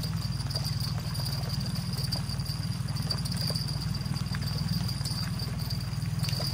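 Outboard motor running steadily at trolling speed: a low, even pulse with a thin steady high tone above it and a few faint ticks.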